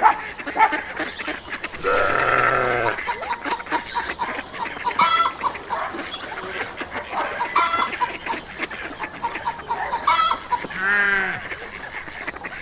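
Farmyard poultry calling: a mix of short, repeated clucks and honks, with several longer drawn-out calls standing out along the way.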